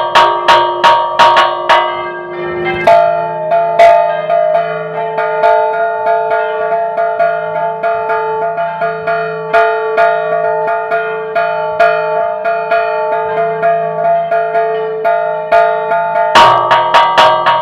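Church bells rung in a repique: stationary bells struck in quick succession by their clappers, not swung. About three seconds in, the peal changes to a quieter, denser pattern on different bells, and near the end the louder, faster strokes return.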